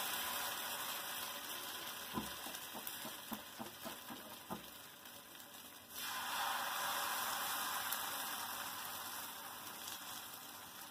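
Malpua batter sizzling as it fries in hot oil in a shallow pan, the hiss slowly fading as the cake sets. About six seconds in, the sizzle jumps louder when a second ladleful of batter goes into the oil, with a few light taps before it.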